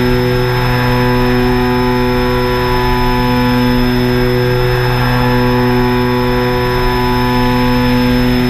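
Drone motors and propellers humming at a steady pitch, a close, even whine with several overtones that holds without rising or falling.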